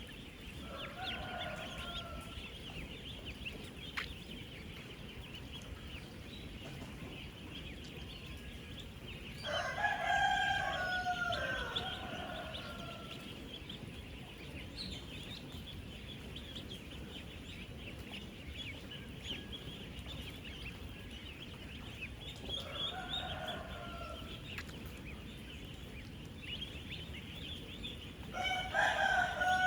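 Dense, continuous peeping of thousands of ten-day-old ducklings crowded together. Louder, drawn-out bird calls rise above the chorus four times: about a second in, around ten seconds in for about three seconds, around twenty-three seconds, and near the end.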